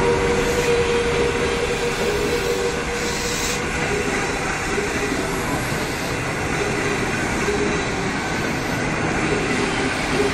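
Passenger coaches of a China Railway 25T through train rolling steadily past on the rails, a continuous rumble of wheels on track. The sound eases slightly in the first couple of seconds, then holds even.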